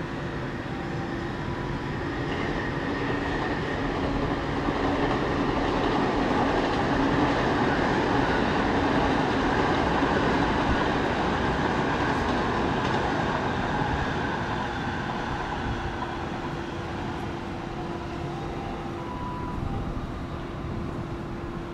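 Train passing by. Its rolling noise builds over the first few seconds, is loudest near the middle, then fades away.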